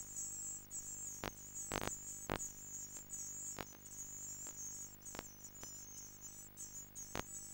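A brood of nestlings in a nest box begging, a continuous high-pitched wavering chorus, over a low steady hum and broken by irregular sharp clicks.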